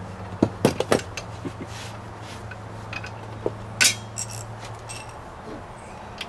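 Metal hand tools and hub bolts clinking and tapping against the hub while a front wheel hub bearing assembly is bolted onto the steering knuckle: a quick run of sharp clinks in the first second, another a little before four seconds in.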